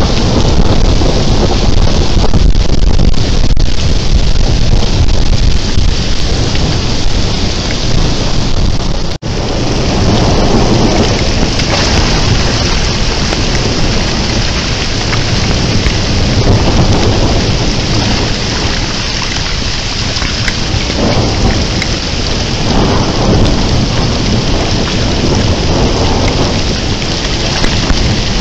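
Heavy rain pouring down with thunder rumbling during a thunderstorm. A brief dropout about nine seconds in, after which the rain hiss is brighter.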